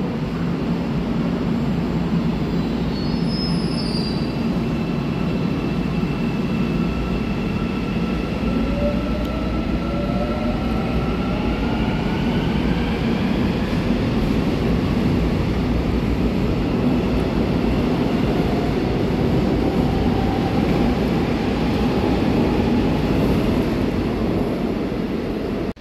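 Seoul Line 4 subway train pulling out of the station: a steady rumble of wheels on rail, with the electric traction motors' whine rising slowly in pitch as it gathers speed.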